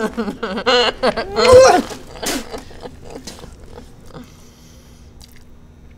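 A woman's wordless vocal noises with her mouth full of food, the pitch sliding up and down for about the first two seconds, followed by a few small mouth clicks and smacks.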